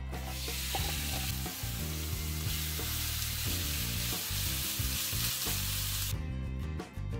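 Finely chopped chicken breast sizzling in a hot nonstick frying pan as it is stirred and broken apart with a plastic spatula, with scraping strokes against the pan. The sizzle cuts off about six seconds in.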